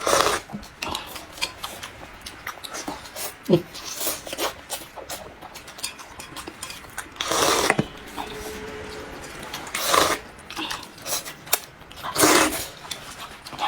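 Eating noodles from a bowl: many quick clicks of chopsticks and utensils against the dish, with three louder, half-second bursts of noise in the second half.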